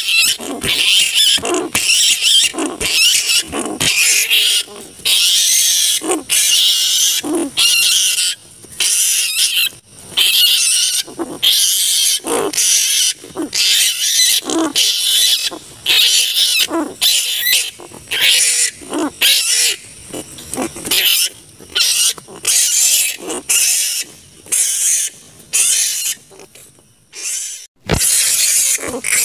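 Large flying foxes (kalong) screeching and squabbling: harsh, shrill calls repeating about once a second in overlapping bouts, with a brief lull near the end.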